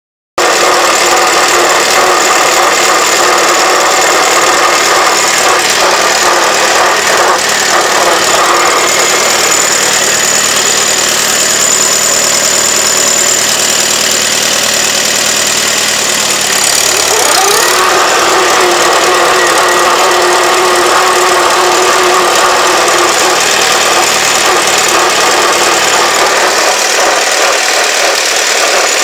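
1948 Farmall Super A tractor running with a steady whine over its four-cylinder engine, which the owner can't tell apart as normal transmission whine or a bad bearing. About halfway through the pitch rises and settles higher.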